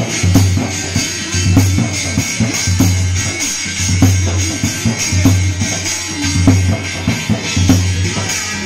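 Live folk percussion: a dhol drum beaten in a steady dance rhythm, with a metal plate struck like a cymbal jangling over the drum's low beat.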